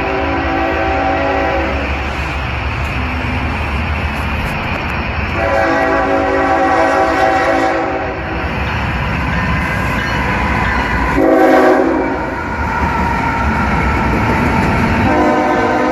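Norfolk Southern diesel locomotive sounding its chord horn in the long-long-short-long grade-crossing pattern over the steady rumble of the moving train. The blasts come about five seconds apart, with the short one near the twelve-second mark.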